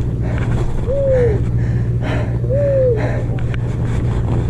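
A boat engine drones steadily underneath, with two short voice-like calls on top, each rising then falling in pitch, about a second and a half apart.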